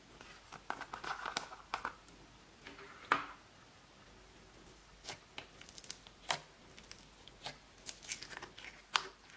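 A plastic slime jar's screw lid being twisted off with crackly clicks, then one sharp click about three seconds in. Scattered small clicks follow as thick slime is worked out of the jar.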